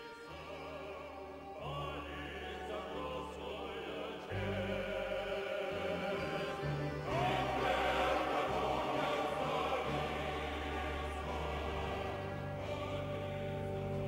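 Orchestral music with a choir singing long held notes, growing louder about four seconds in.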